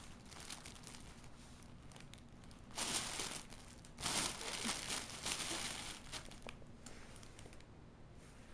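A cat playing in crinkly material, rustling and crinkling it in a short burst about three seconds in and a longer spell from about four to six seconds.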